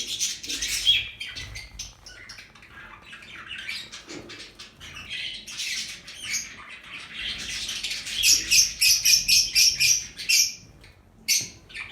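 Lovebirds chirping and squawking in rapid, high-pitched calls, densest and loudest from about eight seconds in, with a short lull near the end.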